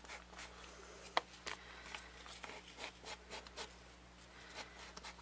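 Ink pad being rubbed and dabbed along paper edges: faint, irregular scratchy strokes and small taps, with one sharper tap about a second in.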